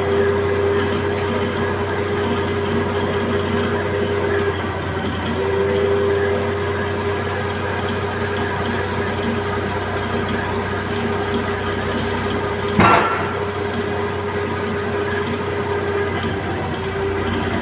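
Heavy machine's engine running steadily with a constant humming tone. One sharp knock about three-quarters of the way through is the loudest moment.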